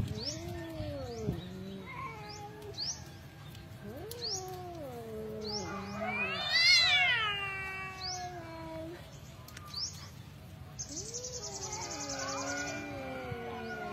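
Two cats yowling at each other in a territorial standoff: long, wavering, drawn-out yowls, often overlapping, with one loud call that rises steeply and falls away about six to seven seconds in.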